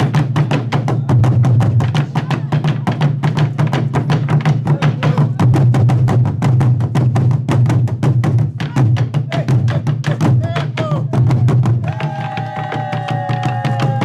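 Drums struck in a fast, even beat of about five strokes a second, with voices calling over them; near the end voices hold a long, slightly falling note.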